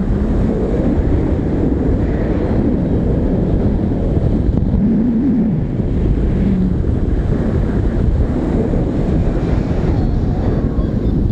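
Steady rush of airflow buffeting the microphone of a camera on a paraglider in flight.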